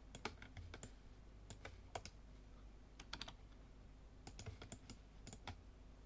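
Faint, irregular clicks of a computer keyboard and mouse, over a low steady electrical hum.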